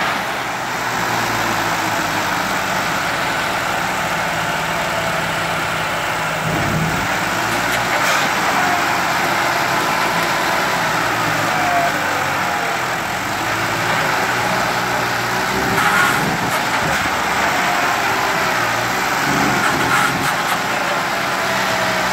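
Two John Deere 5310 tractors' three-cylinder diesel engines running steadily under heavy load as they pull against each other, rear tyres spinning in loose soil.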